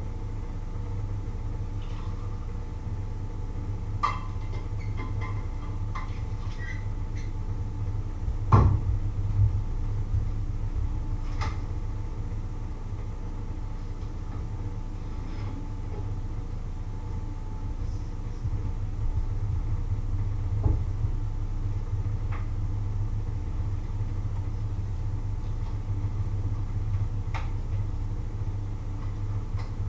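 A steady low hum throughout, with scattered knocks and clicks of dishes and utensils being handled on a kitchen counter; one louder knock comes about nine seconds in.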